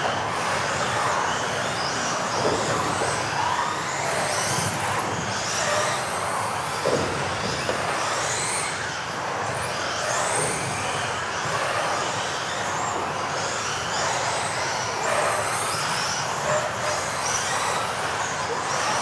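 Several electric off-road RC cars racing together, their motors whining high and rising and falling in pitch again and again as they accelerate and brake, over a steady hiss of tyres and running gear.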